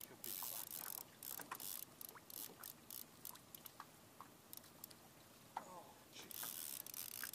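Fishing reel cranked and clicking while a hooked fish is fought on the rod: irregular ticks and clicks, with short bursts of hiss at the start and again near the end.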